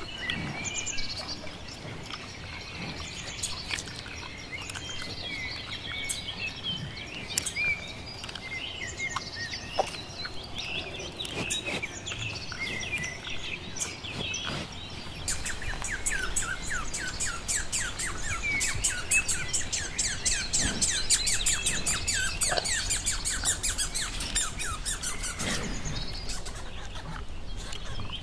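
Squirrel calls: scattered high chirps, then about halfway a long, fast chattering run of short repeated notes, about six a second, lasting some ten seconds. The run is typical of a squirrel's alarm chatter.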